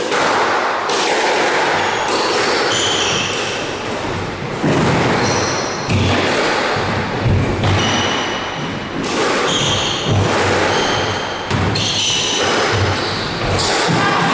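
Squash rally: the small rubber ball struck by rackets and smacking off the court walls about once a second, each hit echoing around the court, with short high squeaks of court shoes on the wooden floor.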